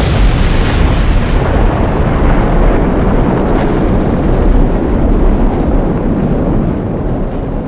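Volcanic eruption sound effect: a sharp blast, then a loud, continuous low rumble of the eruption that starts to die away near the end.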